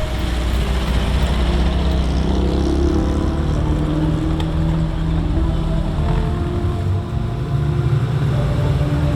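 Engines of vintage vehicles running as they drive past in a slow column, several overlapping with their pitch shifting up and down.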